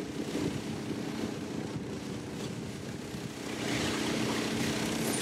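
Snowmobile engine running at a steady speed while towing a passenger sled over snow, a steady drone that gets somewhat louder about two-thirds of the way through.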